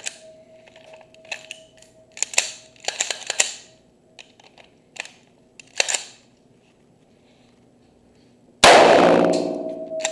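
Light clicks and knocks of an AR-15 rifle being handled, then about two-thirds of the way in a single loud rifle shot that rings and echoes on in the indoor range.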